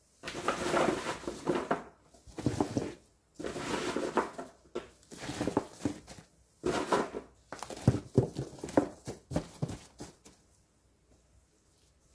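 Unpeeled garlic cloves being tipped and spread by a gloved hand onto kitchen towel in a storage box: the papery skins rustle and the cloves clatter against one another, in several bursts with sharp clicks, stopping about ten seconds in.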